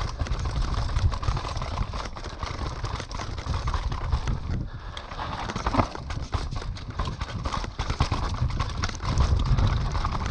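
Mountain bike descending a rooty dirt trail: tyres knocking and skidding over roots and loose dirt, the bike rattling constantly over a steady low rumble.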